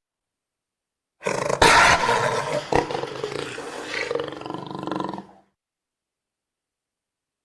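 A jaguar's rough, pulsing call starts about a second in. It lasts about four seconds, is loudest at the start, then dies away into dead silence.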